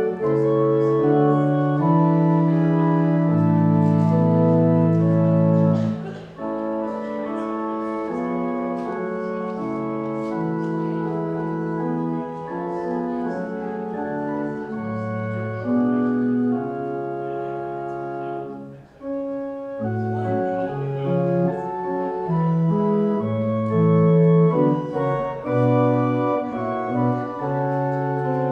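Church organ playing sustained chords, the harmony moving every second or two, with brief breaks about six seconds in and again near nineteen seconds.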